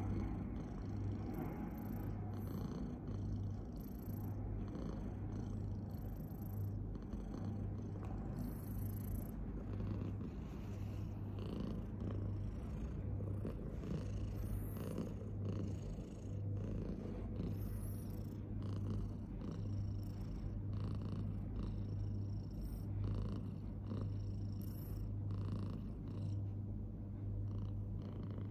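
Tabby cat purring close up: a steady low rumble that swells and dips with each breath, about once a second.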